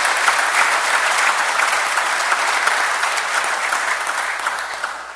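Assembly members applauding, many hands clapping together, dying away near the end.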